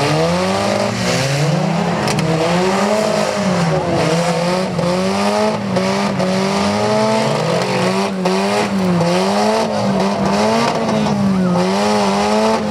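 Several demolition derby cars' engines revving hard together, their pitch rising and falling over and over as the drivers rev up and back off, over a steady haze of engine and wheel noise.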